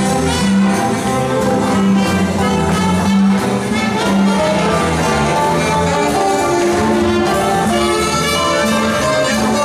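Live small swing jazz band playing, with trumpet and saxophone over drums and a steady bass line.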